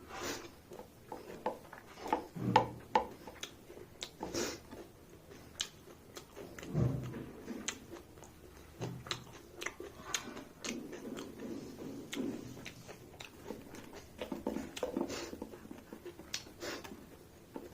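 Close-miked eating: wet chewing, lip smacks and small clicks coming irregularly, with a few soft low thuds, the loudest about two and a half seconds in.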